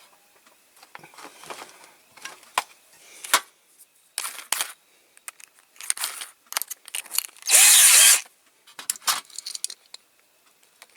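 Drill bits clinking and rattling with scattered clicks as a bigger bit is changed on the drill, then one loud burst of about half a second from the drill a little past halfway.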